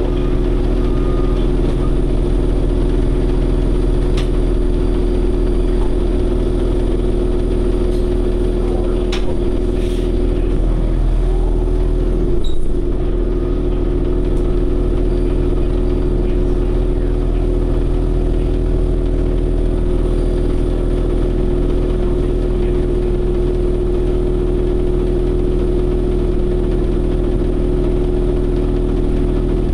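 Steady hum and low rumble of a 2009 Orion VII NG city bus's drivetrain, heard from inside the passenger cabin. A few light clicks, and one brief louder knock about twelve seconds in.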